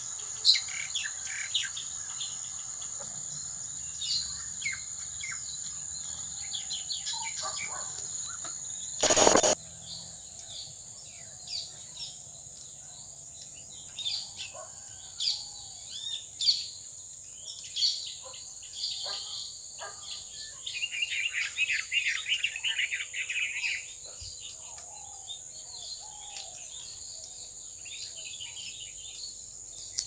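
Birds chirping and calling over a steady high-pitched insect drone. A brief loud burst of noise comes about nine seconds in, and a rapid chattering run of calls about two-thirds of the way through.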